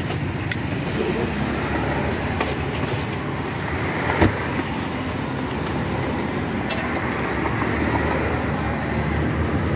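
Road traffic going past: a steady rumble of passing cars that swells and eases, with a single sharp knock about four seconds in.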